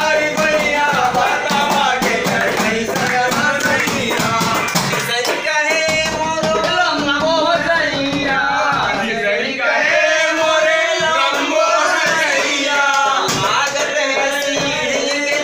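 Men singing a Rewahi (Bagheli) comic folk song, keeping time with their hands on steel plates and a steel bowl used as makeshift drums. The singing carries on throughout over a running beat of metallic strikes.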